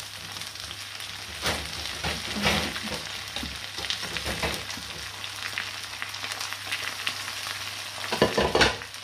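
Cod pieces sizzling as they fry in a pan, with a few louder scrapes of stirring; the loudest come near the end.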